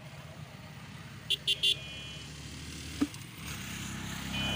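Three short, high beeps of a vehicle horn over the low hum of motor traffic. The engine sound swells near the end, with a single click about three seconds in.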